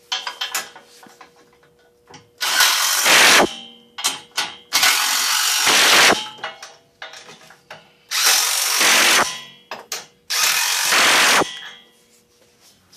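Ratchet wrench clicking in four loud bursts of about a second each, with small clicks between, as it works the factory nuts on the side armor bar's cab-mount bracket.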